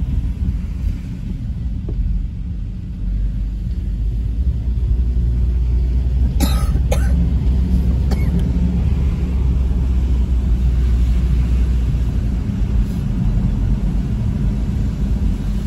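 Car being driven, its engine and tyre noise a steady low rumble heard inside the cabin. Two short sharp noises about six and a half and seven seconds in, and a fainter one a second later.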